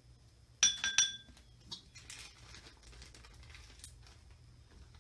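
Metal measuring spoon clinking twice against a container, each clink ringing briefly, followed by faint light rustling of glitter being poured.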